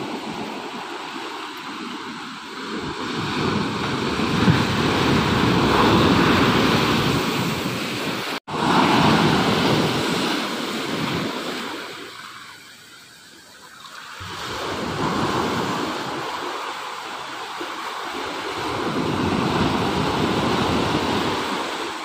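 Ocean waves breaking and washing up a sandy beach, the surf noise swelling and ebbing in long surges with a lull around the middle. A split-second dropout cuts the sound about a third of the way in.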